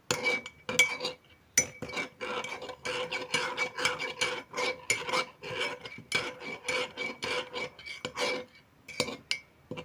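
A spoon scraping round and round inside a tea mug, stirring melted butter and cocoa powder into a paste to work out the lumps. Quick repeated scrapes, about two to three a second, with a light ringing of the mug.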